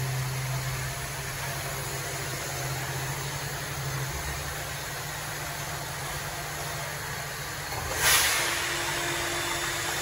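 Norte VS2 vertical machining centre running under test-program rapid traverse, its axis drives and motors giving a steady mechanical hum with the spindle stopped. About eight seconds in, a sudden loud hiss fades over about a second, and a new steady higher hum sets in.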